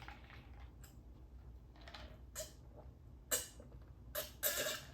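Close-miked eating sounds: chewing of sushi with irregular wet mouth clicks and smacks, several sharp ones near the end.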